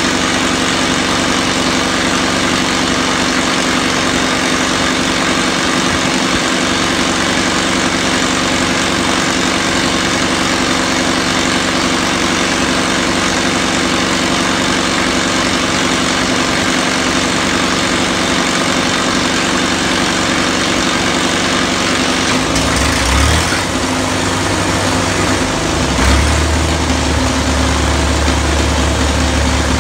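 Caterpillar D2 crawler tractor engine running steadily. About 23 seconds in, a much deeper, heavier low sound briefly joins it, then comes in again and holds from about 26 seconds on.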